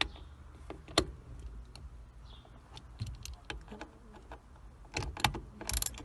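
Scattered light metallic clicks and ticks from hand tools snugging the Torx bolts of a steering-wheel horn switch assembly. There is a sharp click about a second in, a few quick clicks near the end and a short rattle just before it ends.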